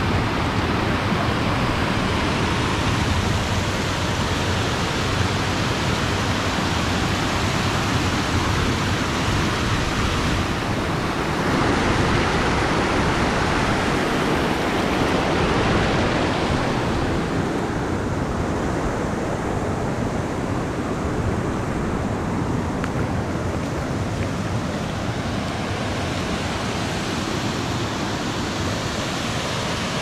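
Waterfall rushing steadily: a constant even wash of falling water. It grows a little brighter around the middle and duller in the last third.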